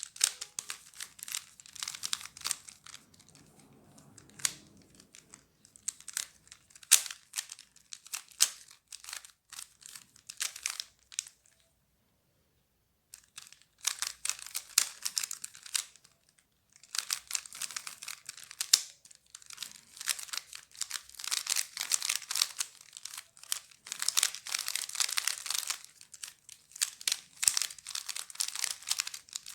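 Plastic Rubik's cube being turned fast during a timed solve: rapid runs of clicking and clacking as the layers snap round, with a short pause a little before halfway.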